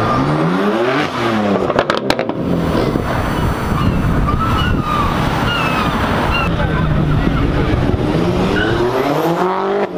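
Sports car engines revving hard as the cars pull away, the pitch climbing and falling in the first second and again near the end. A quick run of sharp cracks comes about two seconds in.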